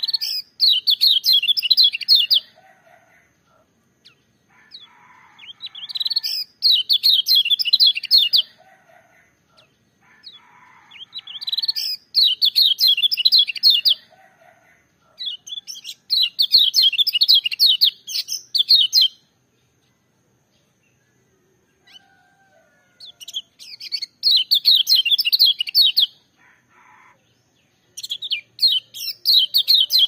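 A kecial kuning, the yellow white-eye sold as pleci Lombok, singing a loud, shrill song: rapid warbling phrases of two to three seconds, six in all, repeated about every five seconds, with softer low notes between them and one longer pause in the middle.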